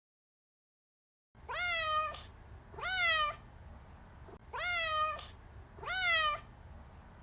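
Domestic cat meowing four times, in two pairs. Each meow rises and then falls in pitch. The meows start after more than a second of silence.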